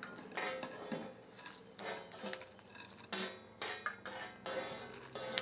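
A metal spoon scraping and clinking on a comal as toasted dried chiles de árbol are scooped off it. It comes as a string of short, irregular scrapes with a sharp click near the end.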